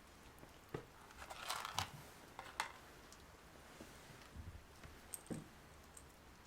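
Close-up handling of paper and small objects: a short crinkling rustle about a second and a half in, with several sharp clicks and light taps scattered through.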